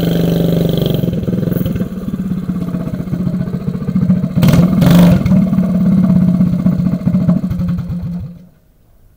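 Minibike's small single-cylinder engine running rough and loud, revved up briefly around the middle, then shut off about a second before the end.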